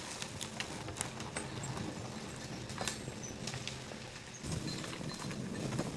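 A horse walking over a logged forest floor, its hooves thudding and scattered twigs and branches cracking underfoot.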